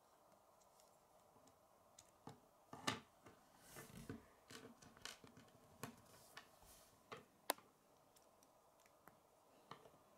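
Faint, scattered clicks and taps of plastic K'nex rods and connectors being handled and snapped together on a wooden tabletop, with the sharpest clicks about three seconds in and again near three-quarters of the way through.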